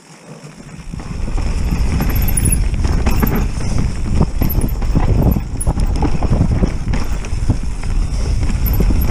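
Mountain bike descending a rough, frosty dirt trail: a loud, fast, irregular rattle of knocks from the jolting GoPro and bike over a rumble of tyres and wind, getting loud about a second in as the bike picks up speed.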